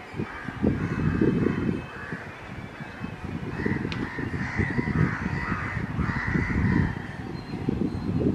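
Crows cawing repeatedly, over a low, uneven rumble.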